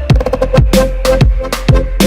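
Background music with a kick drum beat about twice a second under a held synth note, with a quick run of drum hits near the start.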